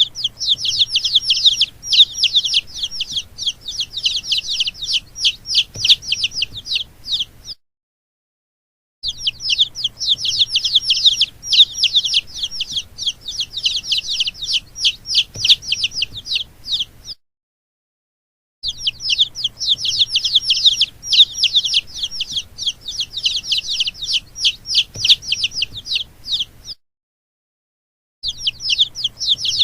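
Baby chicks peeping, many rapid high-pitched peeps crowding together, in stretches of about eight seconds, each cut off abruptly by a short silent gap.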